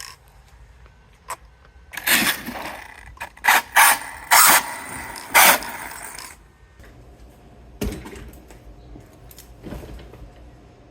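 ARRMA Notorious 6S RC truck's drivetrain run in about five short throttle bursts, with a sharp click before them and another after. The clicking under load is still there, which the owner suspects comes from a rounded-off ring gear in the differential.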